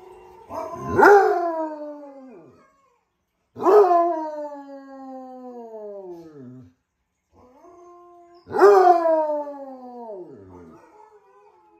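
Basset hound howling: three long howls, each sliding down in pitch as it fades.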